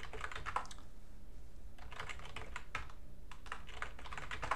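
Computer keyboard typing in several short runs of quick keystrokes, a password being entered and then retyped at a terminal prompt. A faint steady low hum sits underneath.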